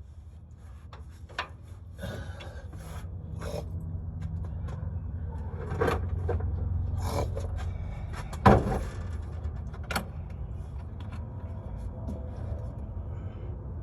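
Hand tools being rummaged and handled in a Husky tool case: scraping, rubbing and clicks, with one sharp loud knock about eight and a half seconds in, over a low steady hum.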